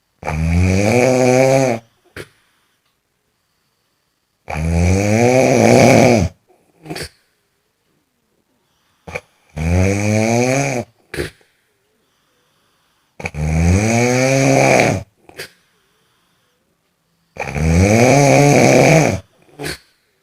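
Loud snoring: five long, drawn-out snores about every four seconds, each rising in pitch and followed by a short puff of breath.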